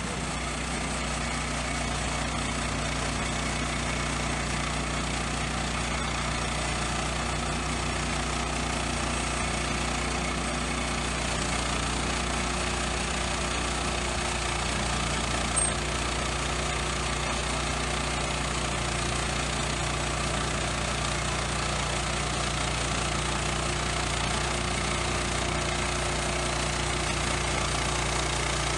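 Woodland Mills HM122 portable bandsaw mill's gasoline engine running steadily while the saw head is pushed along the log and the band blade cuts through it. There is a single brief click about halfway through.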